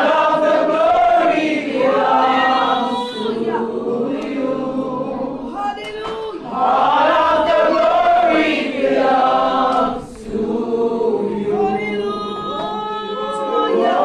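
A congregation singing a worship song together, many voices holding and bending long notes.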